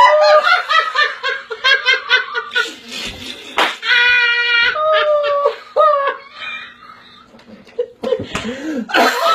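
Hearty belly laughter, mostly one woman's, in quick repeated high-pitched bursts, with a long high squeal about four seconds in; it dies down briefly near the end, then picks up again.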